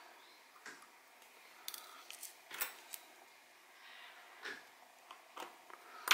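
Small irregular metallic clicks and taps of watchmaker's tweezers and a fine screwdriver against the parts of a Seiko 6139 chronograph movement during disassembly, about eight in all, the loudest about two and a half seconds in.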